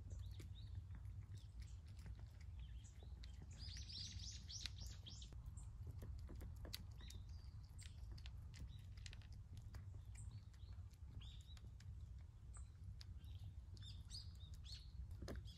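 Cats chewing and lapping food from bowls in faint scattered clicks, while small birds chirp in the background: a quick run of high chirps about four seconds in, and a few more later. A steady low hum underneath.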